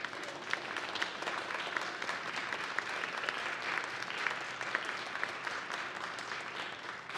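A small audience of a few dozen people applauding: steady, dense hand clapping that keeps an even level throughout.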